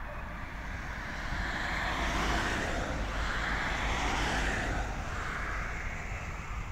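A car driving past on the road, its tyre and engine noise swelling over the first two seconds, loudest around the middle, then fading away, over a steady low rumble.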